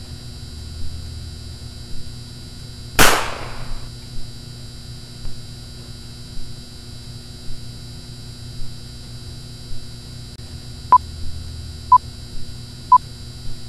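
Old-film leader sound effect: a steady projector-like hum and hiss with a soft click about once a second, and one loud sharp crack about three seconds in. Near the end, three short countdown beeps at one pitch, a second apart.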